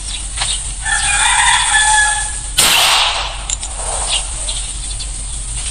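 A rooster crows once, one call about a second and a half long. Just after it ends comes a single sharp pistol shot, the loudest sound here.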